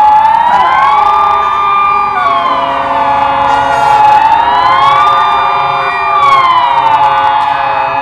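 Swiss civil-defence warning siren sounding the general alarm: a loud wailing tone that rises, holds high for about a second, falls and holds low, repeating roughly every four seconds.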